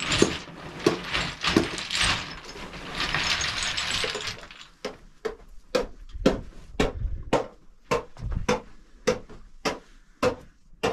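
Rustling and handling of a cloth bundle for about four seconds, then a steady series of short sharp knocks, about two a second, to the end.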